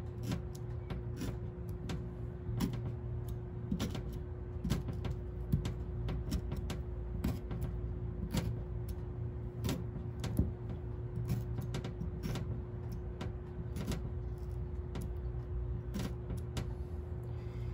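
A fork repeatedly pricking raw potatoes: irregular short clicks, about one or two a second, as the tines pierce the skins, over a steady low hum with a faint constant tone.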